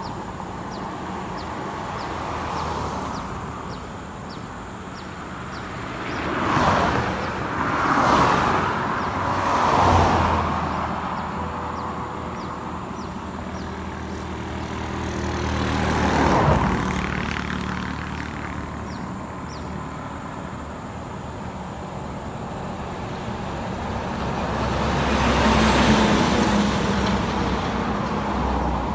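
Road traffic: a steady rumble of engines and tyres, with about five motor vehicles passing close by, three in quick succession about seven to ten seconds in, another near the middle, and a longer one near the end.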